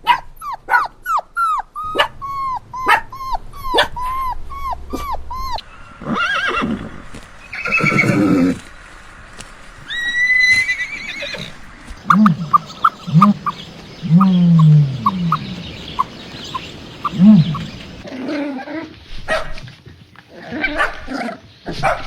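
A run of different animal calls one after another, the caller changing every few seconds: quick short chirps first, then a few louder noisy calls, a rising whistle, and low short calls later on.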